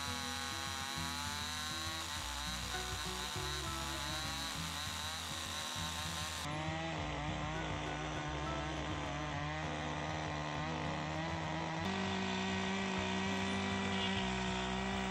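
Small chainsaw running and cutting through a log, its motor pitch wavering as the chain bites into the wood. The sound changes abruptly twice where takes are joined.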